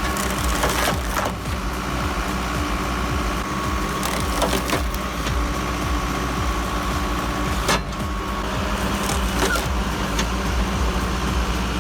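A hydraulic wood cutting and splitting machine running with a steady engine hum and a thin steady whine, with several sharp cracks of wood being cut and split.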